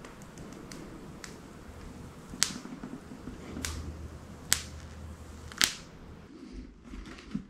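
Clear protective plastic film being peeled off a helmet visor, with a series of sharp crackles and snaps about once a second as it comes away and is handled.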